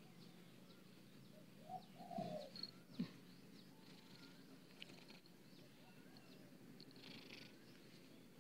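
Faint, steady purring from an elderly Siamese cat being stroked, with faint bird chirps in the background. A short, soft call comes about two seconds in, and a light click about a second later.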